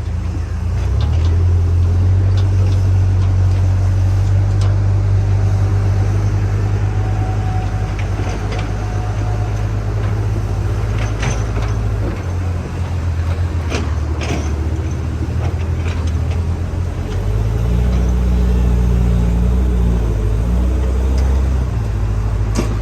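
Heavy-machine diesel engine running steadily, its note dropping about twelve seconds in and rising again, harder, a few seconds later as the load changes. Occasional sharp metallic clicks are heard over it.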